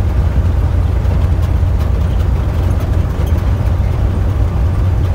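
Steady low drone of engine and road noise heard from inside a vehicle's cab while driving.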